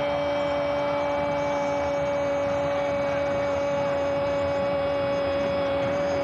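Football stadium crowd noise after a goal, a steady wash of cheering, overlaid by a loud steady hum that holds one pitch without change.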